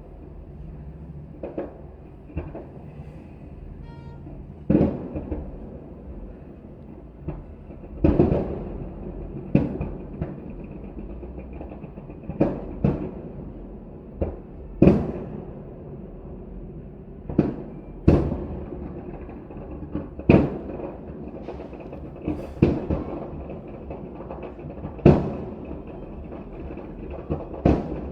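Aerial fireworks shells bursting overhead, one loud boom every one to three seconds at an irregular pace, each followed by a short rumbling echo.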